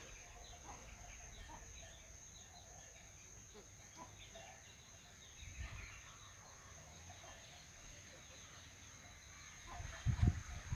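Chickens clucking faintly in short, scattered calls over a steady high insect drone, with a few low thumps on the microphone near the end.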